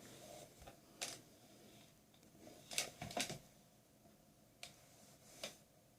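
Faint, scattered clicks and taps of a tablet's parts being handled and fitted back together, about five sharp clicks in six seconds.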